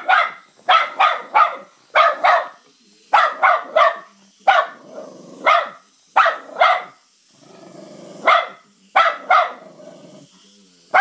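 Small dog barking at a toy in quick clusters of two or three sharp barks, with short pauses between.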